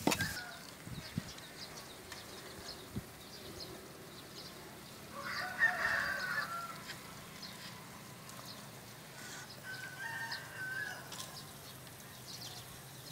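Rooster crowing, loudest about five seconds in, followed by a second, fainter crow about ten seconds in.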